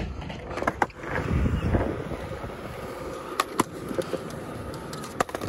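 Skateboard wheels rolling over concrete with a steady rumble, broken by sharp clacks of the board in pairs: about a second in, past halfway, and near the end.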